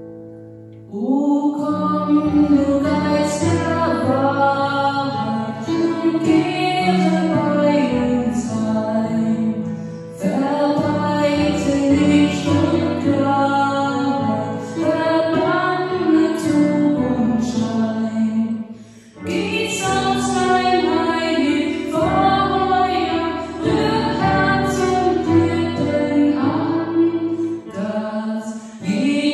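A hymn sung to instrumental accompaniment. The singing comes in about a second in, with short breaks between phrases.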